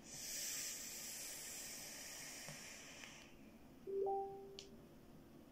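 A steady hiss for about three seconds, then a short two-note electronic chime stepping up in pitch: a phone's incoming-message notification.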